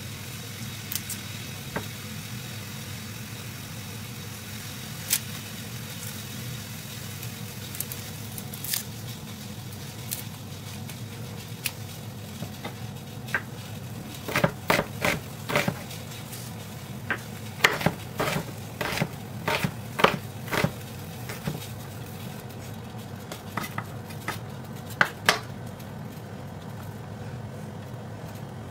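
Chef's knife slicing an onion on a wooden cutting board: sharp knocks of the blade striking the board, only a few at first, then a quick run of cuts from about halfway through and a few more near the end. A steady low hum runs underneath.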